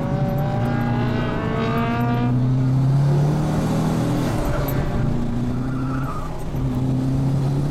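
Twin-turbo 6.0-litre V8 of a Holden Commodore SS wagon heard from inside the cabin, pulling hard through a corner. A rising whine rides over the engine for the first two seconds or so, then stops. The engine note eases briefly near the six-second mark and picks up again.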